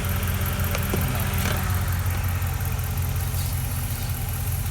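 Dodge Ram pickup's engine idling steadily with the A/C running while refrigerant is charged into the system, with a couple of faint clicks about a second in.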